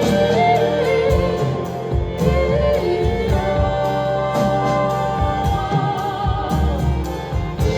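Live band playing a slow folk-pop song, with a woman's voice singing long held notes over the accompaniment.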